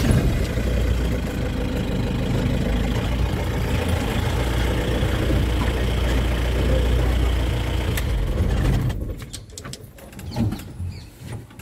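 Safari vehicle's engine running loud and steady under load as the vehicle backs away from the elephants, dropping off about nine seconds in.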